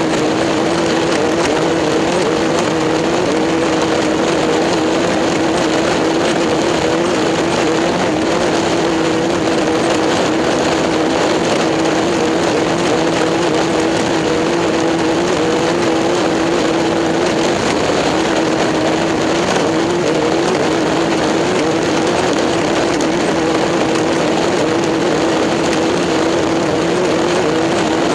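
Engine noise from a racing setting: a steady, loud drone with a held tone that wavers slightly in pitch, without any rise or fall of passing vehicles.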